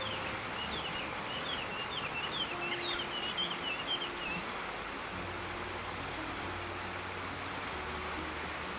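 River flowing in a steady rush, with a bird giving a quick run of short high chirps for the first four seconds or so. Faint low sustained notes sit underneath.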